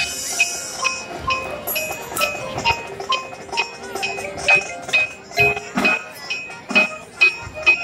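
High school marching band playing, led by percussion. A cymbal-like crash comes right at the start, then a sharp metallic tick marks the beat about two and a half times a second under held pitched notes.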